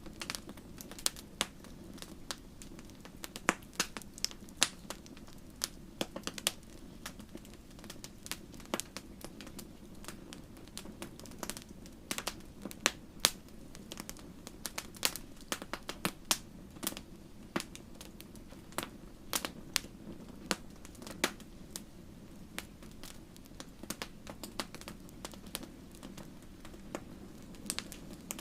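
Wood fire crackling, with irregular sharp pops and snaps over a steady low rumble of the flames.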